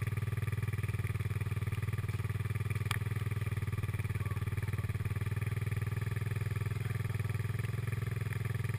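Quad bike engine idling steadily with a fast, even putter and no revving.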